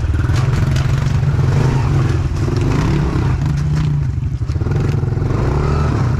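Honda CRF110F pit bike's small single-cylinder four-stroke engine being ridden, its revs rising and falling with the throttle, with the bike clattering over rough ground.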